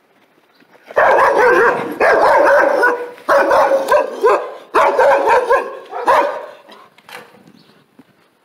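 Dogs barking, a loud, rapid run of barks that starts about a second in, lasts about five seconds and then stops.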